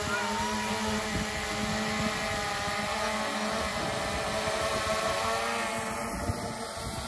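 Steady hum of a small engine running, with wind gusting on the microphone.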